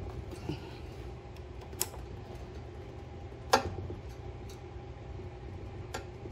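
A few sharp metallic clicks as pliers work spring hose clamps onto a rubber fuel line: three in all, the loudest about halfway through, over a steady low hum.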